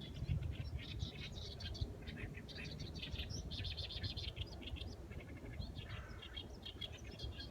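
Small birds chirping and twittering: many quick high calls, overlapping without a break, over a steady low rumble.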